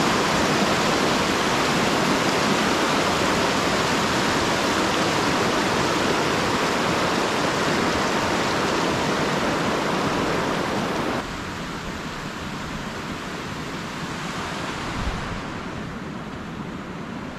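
River water rushing over a rocky bed in a steady, loud rush that drops suddenly to a quieter level about two-thirds of the way through.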